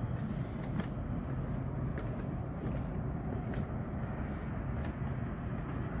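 Steady low rumble of distant city traffic, with a few faint high chirps now and then.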